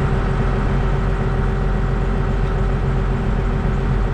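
Tractor engine idling steadily, heard from inside the cab.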